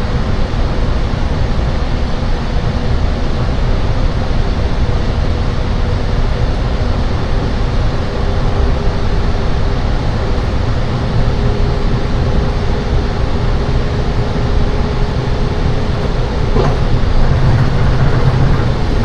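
Inside a Seibu 10000 series Red Arrow limited express at speed: the loud, steady running noise of the train, a heavy rumble with a faint steady whine underneath. There is a single click near the end.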